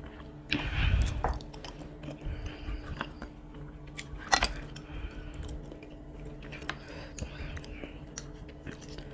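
Close-miked chewing of a mouthful of chicken noodles, with soft mouth sounds. There is a louder burst of noise about half a second in, a sharp click of cutlery a little after four seconds, and a few lighter clinks of a fork and spoon on the plate.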